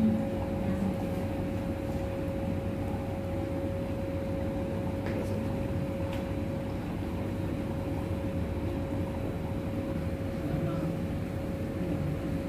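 Steady mechanical hum with one constant mid-pitched tone over a low rumble, with a couple of faint ticks in the middle.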